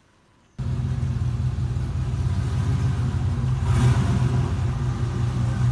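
Cammed Chevrolet Silverado V8 engine running with a low, pulsing exhaust note, cutting in suddenly about half a second in, with a brief swell in level about four seconds in.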